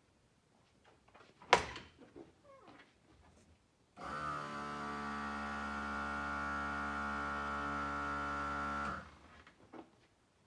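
Onboard 12-volt air compressor switched on with its rocker switch, running steadily for about five seconds with an even hum, then cut off suddenly. A single clunk comes about a second and a half in.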